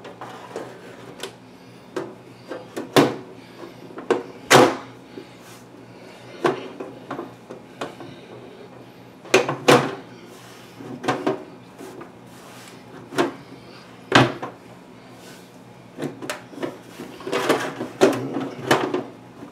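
Desktop computer case cover being fitted back onto its chassis: a run of irregular clacks, knocks and scrapes as the cover is worked down and slid into place, with a cluster of knocks near the end as it seats.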